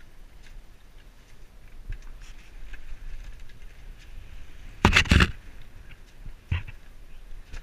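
Low wind rumble on a tiller-mounted action camera's microphone aboard a small sailboat, with handling knocks from the tiller and its extension: a cluster of loud knocks about five seconds in and a single one a second and a half later.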